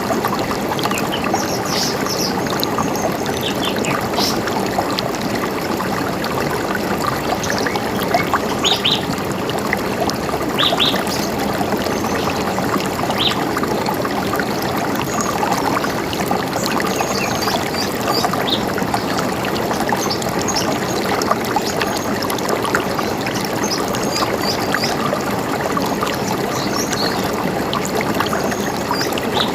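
A river running steadily over stones, a constant rushing and trickling, with short high bird chirps scattered through it.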